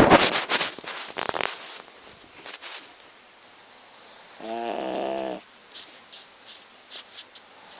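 Shih tzu dog snoring in its sleep: a loud, crackly snore at the start, then a single pitched snore lasting about a second halfway through, with a few faint clicks between.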